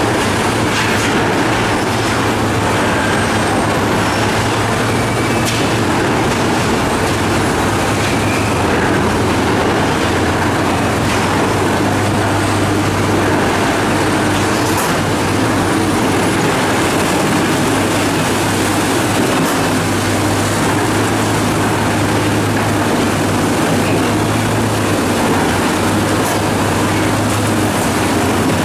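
Sinotruk HOWO dump truck's diesel engine running steadily while its hydraulic hoist slowly raises the loaded bed to tip out rock, a constant low hum with a rattling mechanical din over it.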